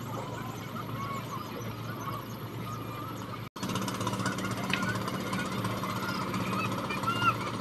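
A steady low engine drone with a knocking beat, with scattered short chirps over it; the sound cuts out for an instant about three and a half seconds in.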